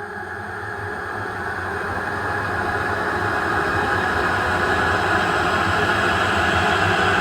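Horror sound effect: a dark, noisy drone that swells steadily louder, with no voice or crying heard in it.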